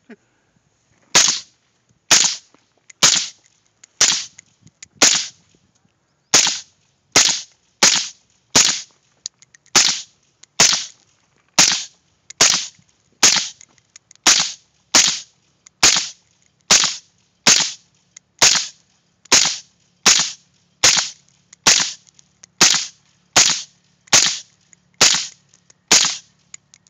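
Suppressed AR-15 rifle firing steady single shots, about one a second, some thirty in all.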